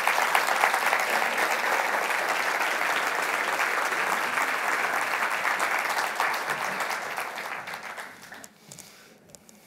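Audience applauding, a dense steady clapping that tapers off and dies away about eight seconds in.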